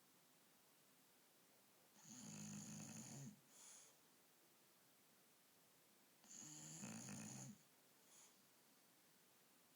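Bulldog snoring in her sleep: two long snores, about two seconds in and again about six seconds in, each followed by a short softer one, with quiet in between.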